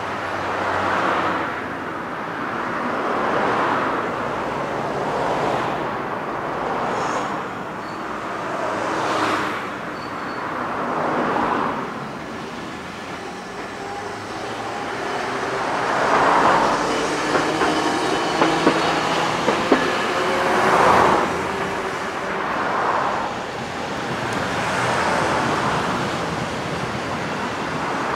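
Hiroshima Electric Railway 1900-series streetcar running along street track, its motor whine rising in pitch as it gathers speed and a few sharp clicks from the wheels on the rails, with cars swishing past every couple of seconds.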